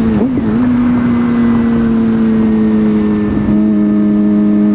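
Sport motorcycle engine running at a steady cruising speed while riding, one even drone holding nearly the same pitch, over wind and road noise. About three and a half seconds in, a higher tone joins the drone.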